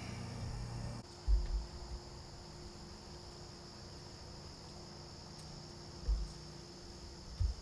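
Insects, crickets among them, trilling steadily in a high continuous chorus. Three dull low thumps come through, the first about a second in and two more near the end.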